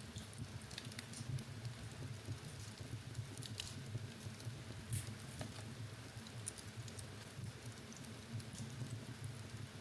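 Wood fire burning in a fireplace, crackling with scattered sharp pops at irregular intervals over a steady low rumble.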